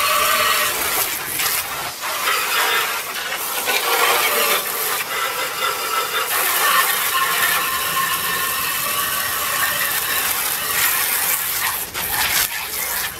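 Garden hose water spraying onto a window air conditioner's metal coils and housing, a loud rattling hiss that wavers as the spray moves, rinsing off 409 cleaner.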